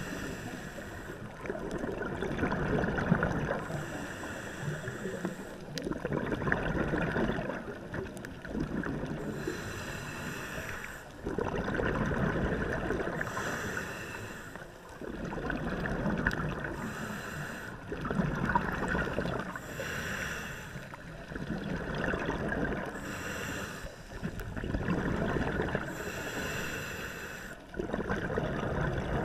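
Scuba regulator breathing heard underwater. A short hissing inhale alternates with a louder bubbling exhale, and the cycle repeats about every three and a half seconds.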